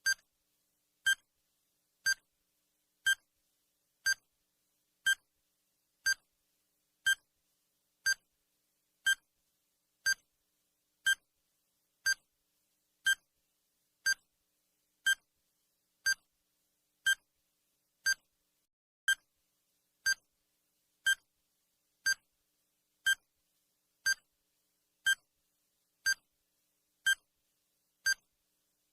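A countdown timer's electronic tick sound effect: a short, sharp beep repeating evenly once a second, with silence between.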